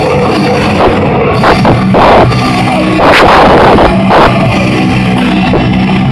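Live djent metal band playing loud: low, heavily distorted down-tuned guitar chugs with drum and cymbal hits, recorded so loud that the sound is overdriven and muddy.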